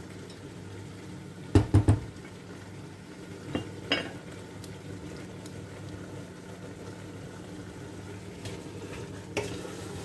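A wooden spoon knocking and clattering against a stainless steel pot as meat, onions and tomato paste are stirred while they fry. There is a quick cluster of about three sharp knocks about a second and a half in, two lighter ones around four seconds, and one more near the end, all over a steady low hum.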